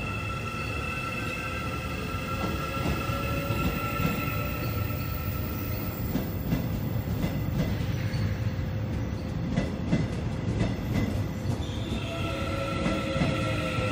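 Korail's old resistor-controlled ('신저항') Line 1 electric commuter train running past along the platform: a steady rumble with many wheel clicks over the rails. A steady high squeal sounds over it, fades out about halfway through and returns near the end.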